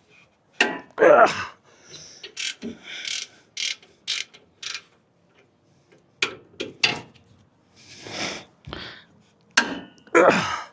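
Hand ratchet breaking loose a bolt on a truck's rear brake, then a series of short, irregular ratchet clicks and metal clanks as the tool is worked.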